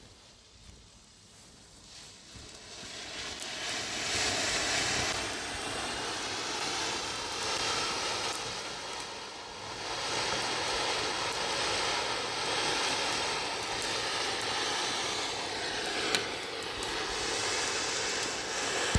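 Funke brocade rain fountain with blue stars burning: a steady spraying hiss that builds up from about two seconds in, with scattered small crackles and one sharper pop near the end.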